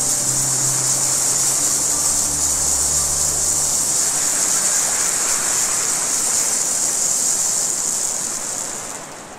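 A steady, high hissing rush like running water, with a few held low musical notes dying away in the first four seconds. The whole sound fades out near the end.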